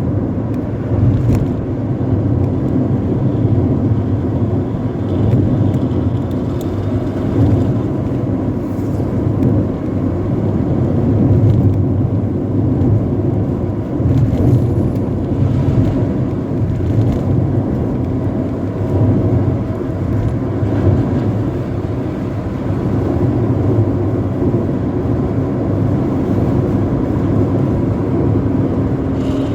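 Intercity bus running at speed through a 'knalpot ngorok' snoring exhaust: a steady deep growling rumble that swells and eases a little without letting up.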